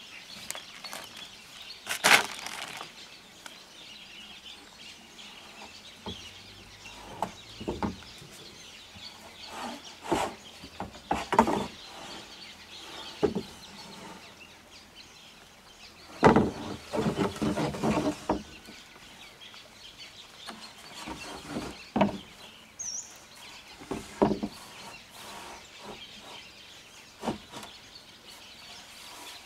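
Corrugated roofing sheets being handled and laid on a bamboo roof frame: scattered knocks and scrapes, with a sharp knock about two seconds in and a longer scraping rattle around the middle.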